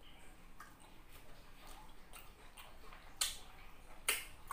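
Close-up mouth sounds of eating rambutan: scattered soft wet clicks and smacks while chewing the fruit, with two sharper smacks in the second half.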